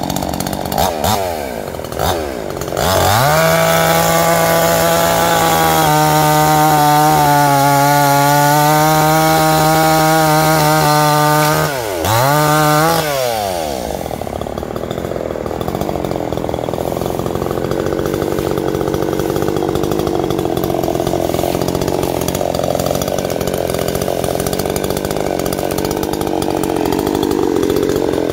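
Tokai two-stroke chainsaw revving up about three seconds in and held at full speed, dropping briefly and revving again near the middle, then running at a lower, rougher pitch for the rest as it bogs down cutting into wood.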